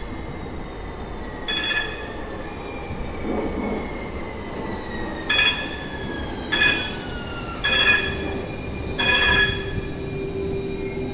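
A Siemens S200 (LRV4) light-rail train pulling into an underground station. A falling electric whine sounds as it slows, with five short, shrill wheel squeals spread through its arrival, echoing off the platform walls. A steady hum sets in as it comes to a stop.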